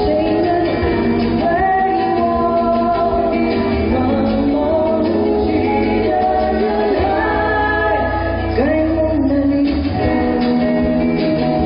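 A woman singing a slow Mandarin pop ballad live into a microphone, over instrumental band accompaniment.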